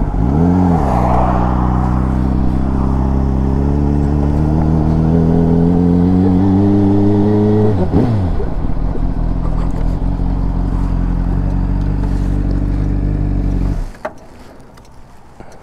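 Motorcycle engine revving up, then pulling with a slowly rising pitch before dropping sharply as the throttle closes about eight seconds in. It runs steady and lower after that, then cuts off suddenly about fourteen seconds in.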